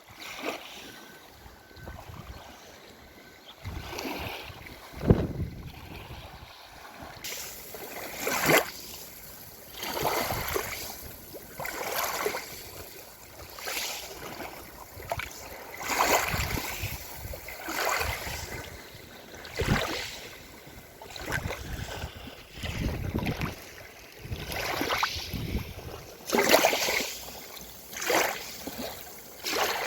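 Black Sea waves breaking and washing onto the shore, a surge every couple of seconds.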